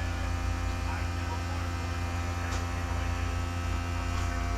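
Air compressor running with a steady low hum. A couple of faint light clicks sound over it, about two and a half seconds in and near the end.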